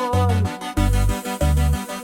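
Instrumental cumbia music: a bass line pulsing in a steady beat under chords, with a held lead melody note wavering in vibrato that ends about half a second in.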